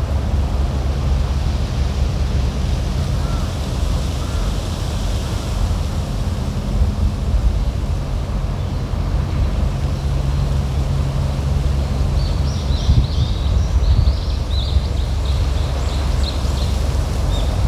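Wind buffeting the microphone, a steady low rumble under a faint hum. About twelve seconds in, a bird sings a quick run of short high chirps for several seconds.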